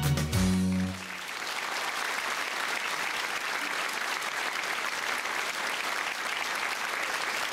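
The band's closing notes end about a second in, then an audience applauds steadily.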